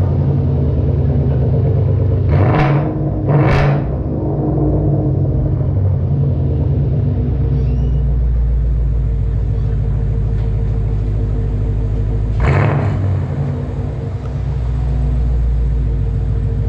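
2017 Ford Mustang GT's 5.0 Coyote V8 idling with a deep rumble through a Flowmaster Outlaw cat-back exhaust. It is blipped briefly twice, about two and a half and three and a half seconds in, and once more about twelve and a half seconds in.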